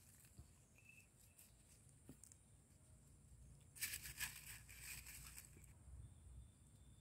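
Near silence, broken about four seconds in by a faint crackling rustle of dry leaves lasting a couple of seconds.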